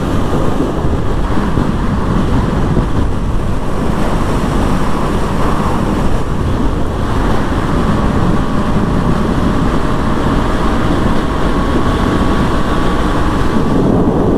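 Heavy wind rushing over the action-camera microphone of a moving motorcycle, with faint steady engine tones beneath it.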